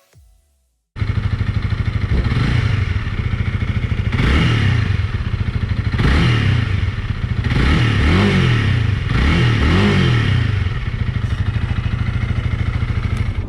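Honda Rebel 300's single-cylinder engine running straight through its bare exhaust pipe with the stock muffler removed, revved about five times, the pitch rising and falling with each blip. It starts suddenly about a second in.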